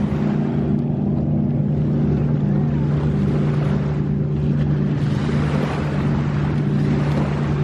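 Motorboat engine running steadily: a constant low drone with a hum and overtones that do not change, over wind and water noise.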